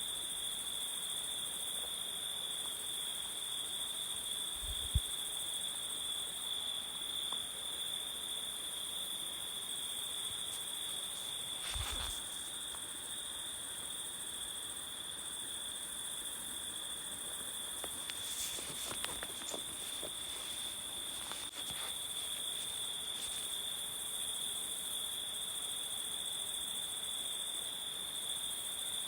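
Jungle ambience of a steady, high-pitched insect chorus trilling without a break. A short soft thump comes about five seconds in and another near twelve seconds, with a few brief chirps a little past the middle.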